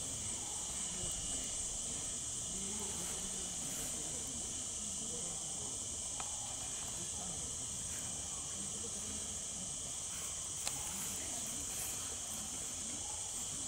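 Steady, high-pitched drone of a forest insect chorus, unbroken and even in level.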